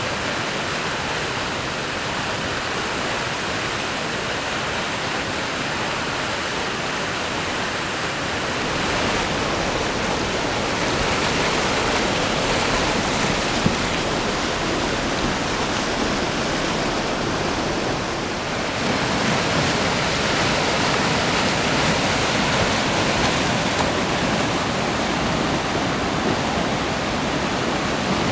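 Whitewater rushing through the rapids of an artificial slalom course: a steady, full rush of water that shifts a little in tone twice.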